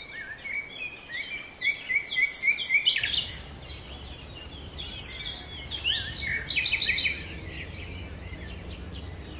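Birds chirping, with quick runs of short repeated notes in the first three seconds and again around five to seven seconds in. A steady low hum starts about three seconds in.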